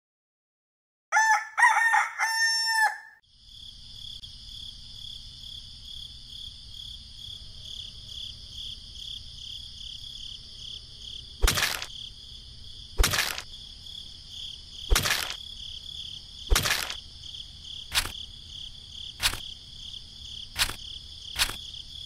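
A rooster crowing once, about a second in. It is followed by a steady high chirring of insects, and from about halfway a series of sharp taps comes roughly every second and a half.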